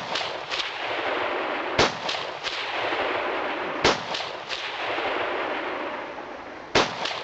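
Three gunshots about two seconds apart, each followed by quick echoes, over a steady background hiss.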